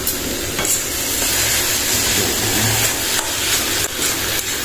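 A spatula stirring and scraping paneer bhurji around a kadhai, over a steady sizzle and hiss of frying.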